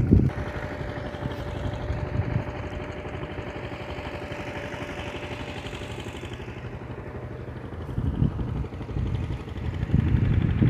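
A motor vehicle's engine running steadily, growing and then fading over several seconds as it passes. Wind buffets the microphone at the very start and again from about eight seconds in.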